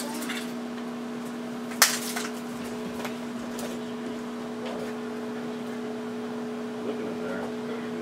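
Microwave oven running with a steady hum while a plastic telephone burns inside it, with scattered crackles and one sharp loud pop about two seconds in.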